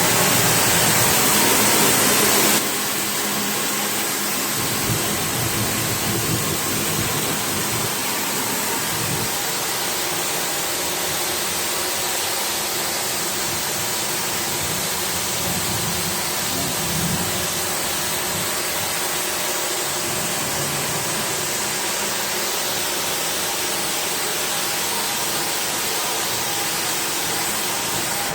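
High-pressure water spray hissing steadily over a steady motor hum as air-conditioner parts are washed. It is louder and brighter for the first couple of seconds, then settles to an even level and stops abruptly.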